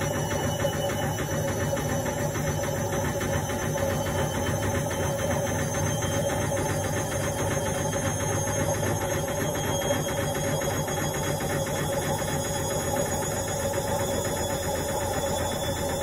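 Indesit front-loading washing machine running on a quick wash: a steady motor hum with vibration, over a faint high whine that rises slowly in pitch.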